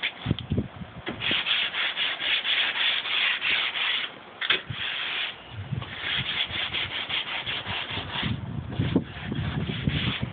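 A rough rubbing noise in quick repeated strokes, several a second, with a short break about halfway through.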